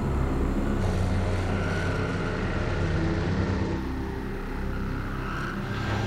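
Low, steady drone of a Merlin's twin turboprop engines in cruise, heard inside the cabin.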